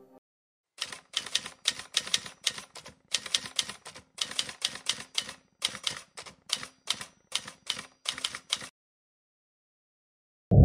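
Typewriter key strikes, a run of quick clacks in uneven clusters of several per second, stopping a little before the end. Right at the end a loud, low rushing noise cuts in suddenly.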